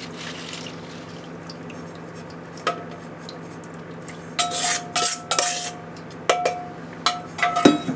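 A wooden spatula scrapes and knocks against a stainless steel mixing bowl as the last of a thick sauce is scraped into a pan. The bowl rings briefly after several of the strokes, which come in clusters over the second half. A steady low hum runs underneath.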